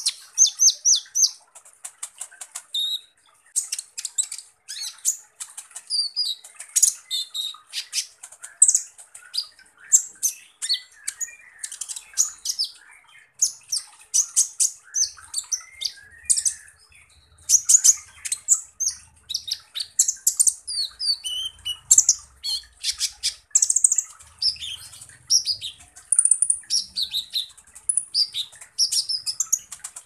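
Male purple-throated sunbird (kolibri ninja, Leptocoma sperata) singing a fast, continuous string of high, harsh chips, rattles and short whistled notes. These are the rapid rough phrases that bird keepers call "tembakan kasar".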